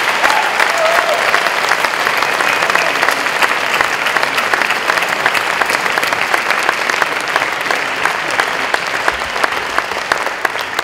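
Audience and a stage full of children applauding, a dense, steady round of clapping that begins to die away near the end.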